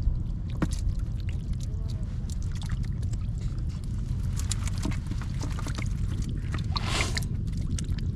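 Water splashing and sloshing over a steady low rumble, with scattered small splashes and a louder splash about seven seconds in.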